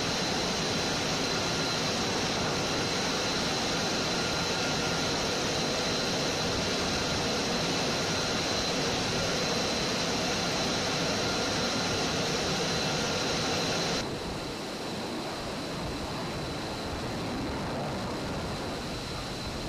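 Steady jet engine noise on a flight line, with a thin high whine over it; about fourteen seconds in it drops suddenly to a lower, duller level and goes on.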